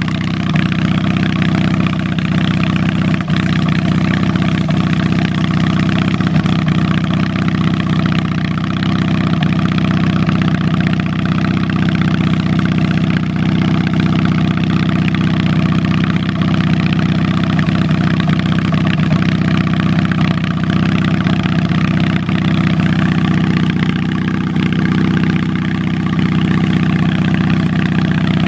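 A 1983 Yardman (MTD) garden tractor's engine running steadily while the tractor drives across grass, heard close from the seat.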